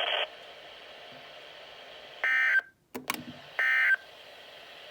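EAS/SAME end-of-message data bursts received by a Midland WR-120EZ weather radio: three short bursts of digital tones about a second apart, signalling the end of the weekly test alert. A brief dropout and crackle follow the first burst.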